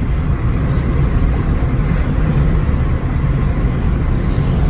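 Steady low rumble of a car's engine and tyres on the road, heard from inside the cabin while cruising at an even speed.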